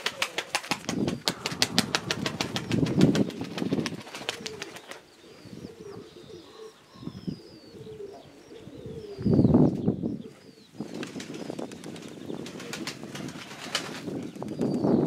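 Domestic pigeons flapping their wings, a fast run of wing claps for the first few seconds and again near the end, with low pigeon cooing underneath and a few faint small-bird chirps in between.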